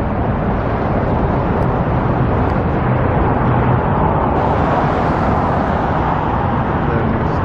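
Steady road and traffic noise from passing vehicles, an even rumble with no distinct events.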